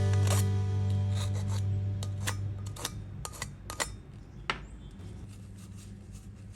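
Scattered light clicks and scraping of small hand tools being handled, about a dozen in the first four and a half seconds. Under them, background music fades out over the first three seconds.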